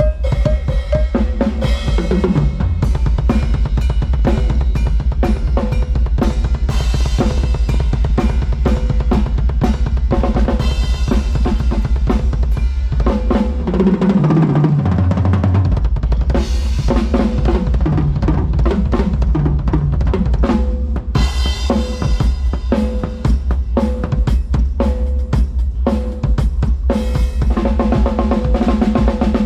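A live band's drum kit playing a steady groove with kick, snare and cymbals during a soundcheck, with a low bass line underneath that slides down and back up about halfway through.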